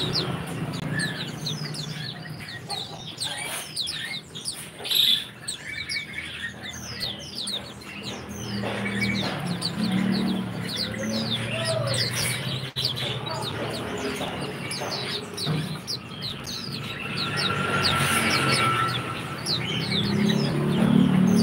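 Many caged small songbirds chirping at once: a dense run of quick, high, downward-sweeping chirps over a steady low hum.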